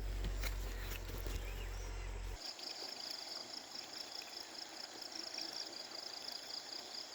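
An insect chirping in a high, rapid, evenly pulsed trill, starting suddenly about two and a half seconds in. Before that, a low steady rumble fills the background.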